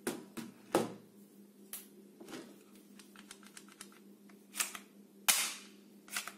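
Hard plastic clicks and clacks of a toy pump-action shotgun being picked up and handled, its pump grip worked: a string of sharp separate clicks, small rattling ticks about three to four seconds in, and a few louder, longer clacks near the end.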